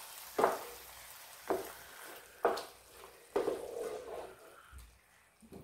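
Wooden spoon stirring fire-roasted tomatoes and diced onions in a sizzling skillet: four scrapes about a second apart over a steady sizzle that dies down near the end.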